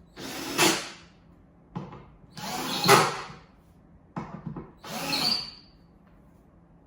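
Power drill driving screws into a board, in four short runs of about half a second to a second each, with brief pauses between.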